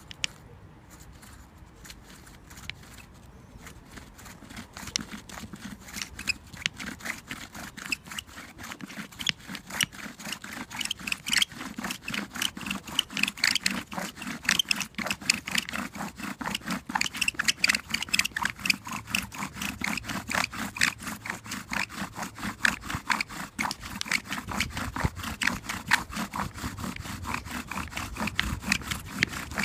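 Bow drill at work: a fired-clay spindle spun back and forth by a wooden bow, grinding into a wooden fireboard in a friction-fire attempt. The scraping rises and falls with each stroke of the bow and grows louder over the first several seconds.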